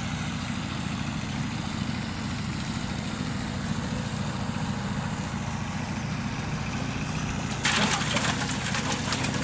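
A steady low hum, then, a little before the end, a sudden splashing as a hooked catfish thrashes at the surface of the pond.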